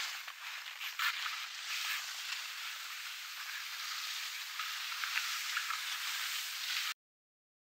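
Skis sliding over snow: a steady hiss with a few short scrapes, cutting off suddenly near the end.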